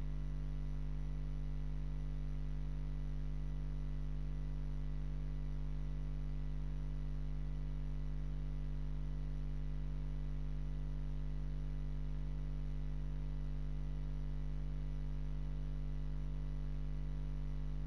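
Steady electrical mains hum with a low drone and a ladder of buzzing overtones, unchanging throughout; no speech comes through.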